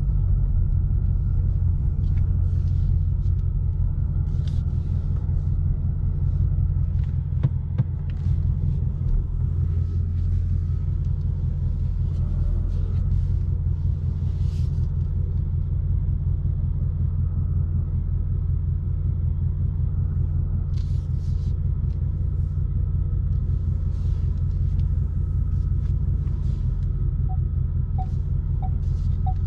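2020 Ford Mustang GT's 5.0-litre V8 rumbling steadily at low revs, heard from inside the cabin while the car rolls slowly. Near the end a string of short electronic beeps from the car starts, two or three a second.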